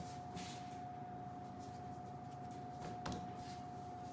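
Bread dough being kneaded by hand on a floured stainless-steel worktop: quiet soft pats and rubs, with one slightly louder knock about three seconds in, over a faint steady whine.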